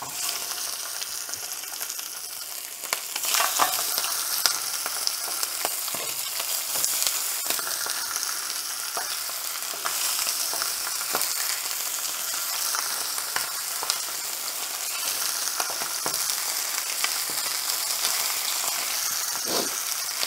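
Chicken pieces sizzling as they are seared in hot oil on medium-high heat in a stainless steel sauté pan. The sizzle starts as the first piece goes in and grows louder about three seconds in as more pieces are added, then holds steady with small crackles.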